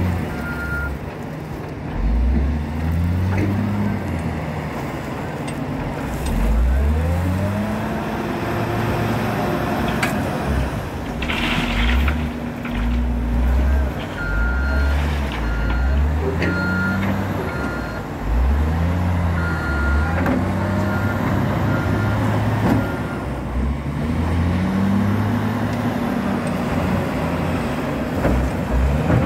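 Caterpillar 966H wheel loader's diesel engine revving up and falling back again and again as it works the load. About fifteen seconds in, its reversing alarm beeps steadily for several seconds, and a short hiss comes about eleven seconds in.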